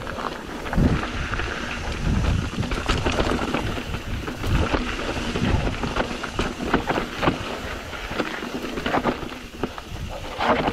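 Mountain bike riding fast down a rocky dirt trail: wind buffeting the microphone with a low rumble, while the tyres crunch over gravel and the bike clatters and rattles over rocks in many short knocks.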